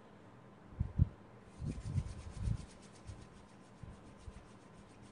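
Hands rolling a thin coil of clay between the palms: a fast, even rubbing of skin on clay, about ten strokes a second. It is preceded by two soft knocks on the tabletop about a second in.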